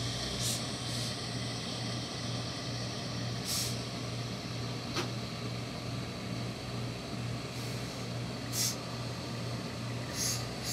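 Industrial hose-fed steam iron pressing trouser cloth: short hisses of steam every few seconds over a steady low hum, with a single click about five seconds in.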